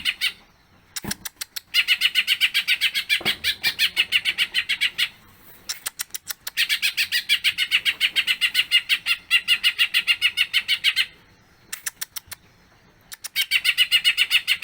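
Green leafbird (cucak ijo) singing in full voice: long runs of fast, evenly repeated chattering notes, each run lasting three to four seconds. The runs are broken by brief pauses that hold a few sharp, scattered clicks.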